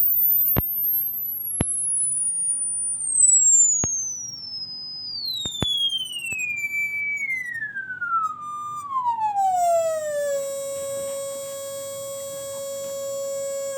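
Electronic pure tone sweeping down from a very high whistle to a low hum over about ten seconds, falling in small steps, then holding one low note with a buzzy edge near the end. A few faint clicks sound in the first six seconds.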